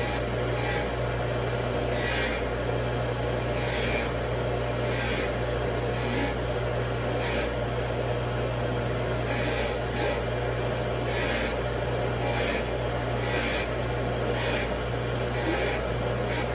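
Repeated hand rubbing or scrubbing strokes, about one a second and unevenly spaced, over a steady low hum.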